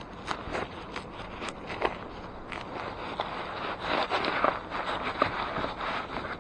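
Close handling noise from an action camera and its mount being adjusted and turned by hand: irregular clicks, knocks and rubbing, busiest in the second half. No engine is running.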